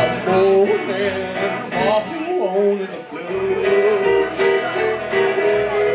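Live country band playing an instrumental break: an electric guitar lead with bent notes over a steady walking line on upright bass and a strummed acoustic guitar.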